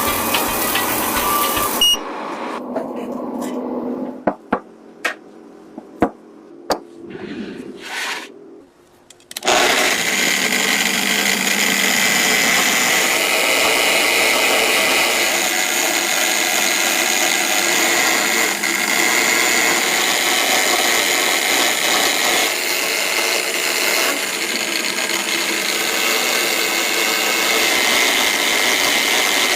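A few sharp clicks and knocks, then, about a third of the way in, a handheld electric power tool starts and runs steadily with an even whirring hiss.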